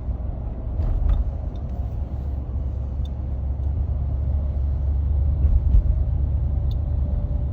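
2015 Ford F-150 engine running with a low rumble and a faint steady whistle that grows clearer near the end; the owner puts the squeal/whistle down to a bad water pump.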